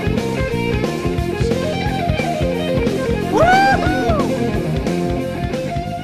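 Rock music with electric guitar over a steady drum beat. About three and a half seconds in, a louder note bends up and down.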